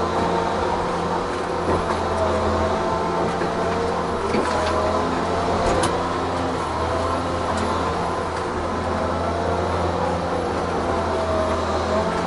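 Tigercat 1075B forwarder's diesel engine running steadily, heard inside the cab as the machine drives over rough ground. The engine hum carries a steady whine, and a few sharp knocks and rattles come about four and six seconds in.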